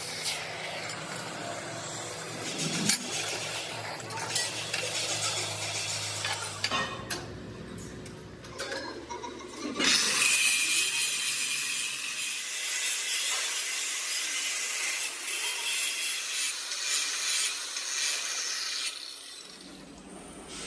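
Oxy-fuel cutting torch hissing as it cuts steel plate. About ten seconds in, a DeWalt angle grinder starts cutting into a steel piece clamped in a vise, a loud high whine with grinding noise that stops shortly before the end.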